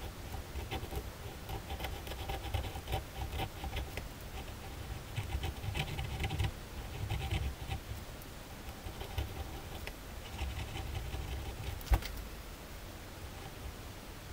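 Ballpoint pen scratching across paper in bursts of short quick strokes, with the soft knock of the hand and pen on the sheet. A single sharp tap comes late on.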